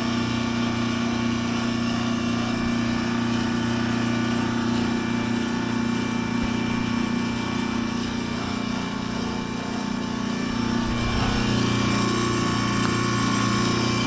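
2003 AirEase Concept 1000 heat pump outdoor unit running in defrost mode: a steady compressor hum with many overtones while the frosted coil steams off.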